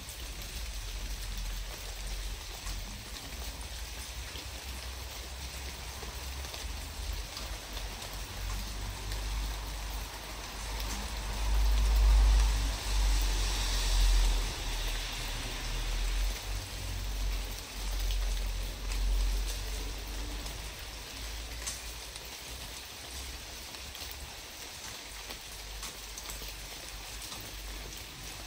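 Wind rumbling on the microphone in gusts, strongest about halfway through, over a steady rushing hiss of outdoor noise.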